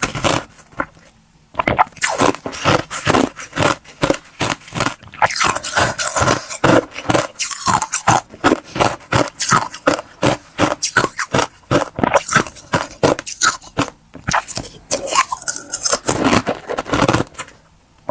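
Clear 'crystal ice' being bitten and chewed close to the microphone: rapid, sharp crunches, several a second, with short pauses between bites.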